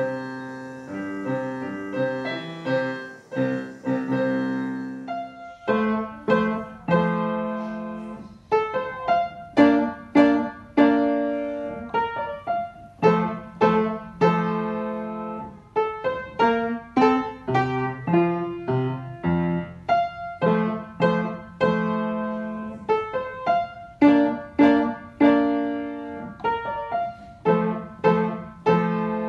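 Two children playing a four-hands duet on a digital piano. About five and a half seconds in it cuts to an upright acoustic piano playing a Classical-era minuet at a steady, lilting pace, with separate struck notes.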